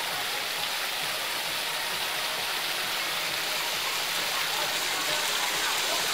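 Water splashing steadily in an outdoor fountain, an even rushing hiss with no breaks.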